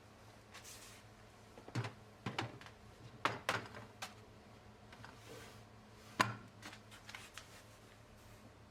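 A scatter of light knocks and clicks from household items being picked up and set down, about six in all, the sharpest a little after six seconds in, with a few soft rustles between them.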